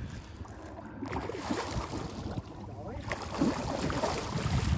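Wind buffeting the microphone over open water, with water lapping and faint voices in the background.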